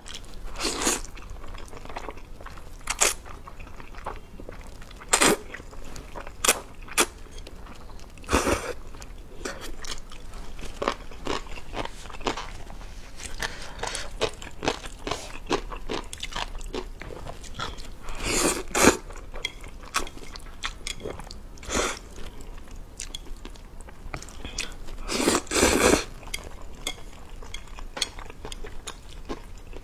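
Close-miked eating of spicy instant noodles: wet chewing and a few longer slurps, with short clicks of chopsticks against the plate.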